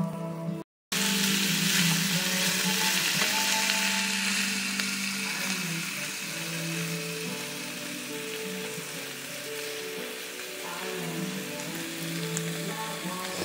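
Chicken gizzards and livers with sliced onions sizzling as they fry in oil in a nonstick pan, loudest in the first few seconds after a brief gap just under a second in. Background music plays throughout.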